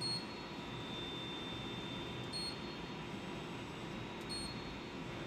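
Steady machine hum and hiss with a thin high whine, broken by three short high beeps about two seconds apart.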